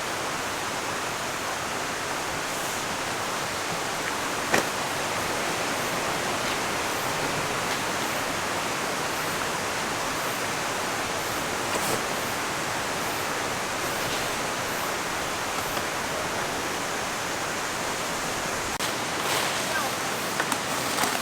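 Mountain stream rushing steadily over rocks, with a single sharp knock about four and a half seconds in.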